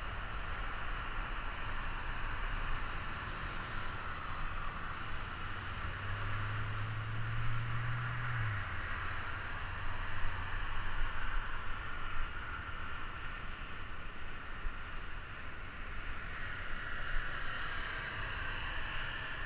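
A steady rush of road traffic from a multi-lane road alongside, mixed with wind on a bike-helmet camera while cycling. A low hum swells for a couple of seconds near the middle and stops abruptly.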